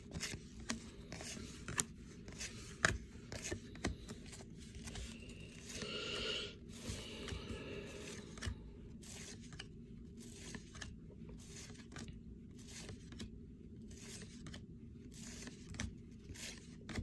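1992 Topps baseball cards being flicked through by hand, with soft slides and light clicks of card against card, a little louder about six seconds in, over a steady low room hum.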